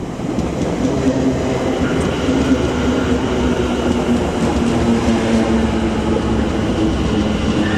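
London Overground Class 710 electric multiple unit running slowly into a platform: a steady rumble of the train with a low hum.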